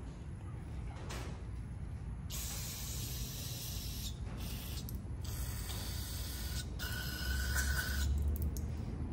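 Aerosol brake cleaner sprayed onto a tractor's hydraulic lift valve housing, hissing in several long bursts beginning about two seconds in.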